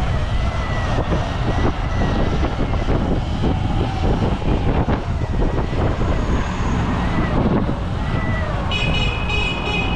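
Wind buffeting the microphone while riding a Surron X electric dirt bike, with the electric motor's thin whine rising and falling with speed. A brief shrill high-pitched tone comes in near the end.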